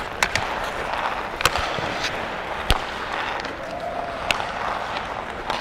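Ice skate blades scraping and carving on the ice, with about four sharp cracks of hockey sticks hitting the puck on passes and shots.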